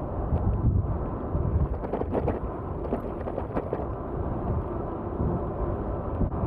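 Wind rumbling on the microphone of a moving bicycle, a steady low buffeting, with a few faint clicks between about two and three and a half seconds in.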